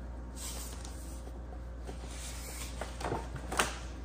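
Quiet room with a steady low hum and soft rustling from a hardcover book and its paper dust jacket being handled, with a few short rustles near the end.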